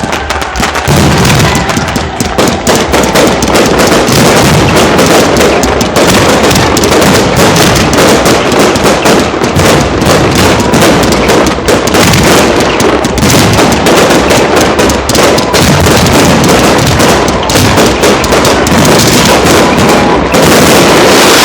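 Aerial fireworks display going off in a loud, dense, unbroken barrage of bangs and crackling.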